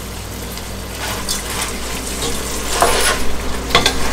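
Wooden spatula stirring freshly added basmati rice into chicken gravy in a pot: several short scraping, rustling strokes from about a second in, over a steady hiss.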